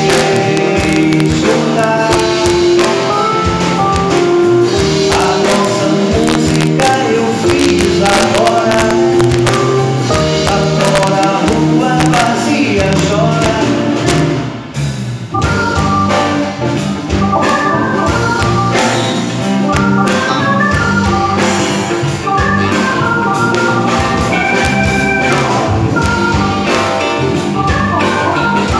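Live band playing: acoustic guitar, electric bass, drums and a Yamaha keyboard with an organ sound. The music dips briefly about halfway through, then carries on.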